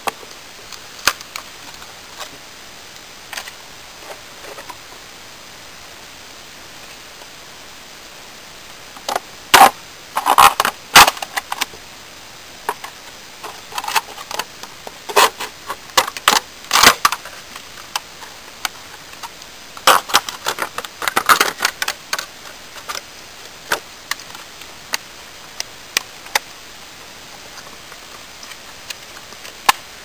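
A run of sharp clicks, taps and crackles as hands work a Swiss Army knife on a wooden spear shaft under a crinkling plastic sheet. The clicks come thick and fast from about a third of the way in to about three quarters, with only scattered clicks before and after.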